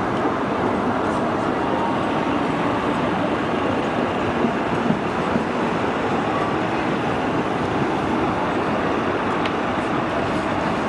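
Steady street traffic noise, with a Bombardier Flexity Swift CR4000 tram rolling past on street running in the second half.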